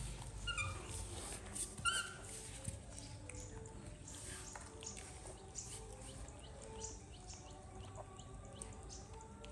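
Baby macaque giving two short squeaky calls, about half a second and two seconds in, while light clicks of hand-eating carry on beneath faint background music.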